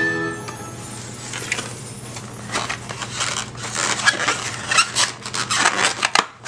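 Polystyrene foam takeout clamshell being handled and its lid pressed shut: a run of squeaky, crackling rubs and clicks, strongest toward the end.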